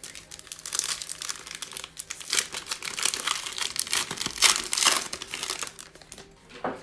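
Foil wrapper of a Mosaic basketball Fast Break card pack crinkling and tearing as it is ripped open by hand: several seconds of dense, crackly rustling with sharp spikes.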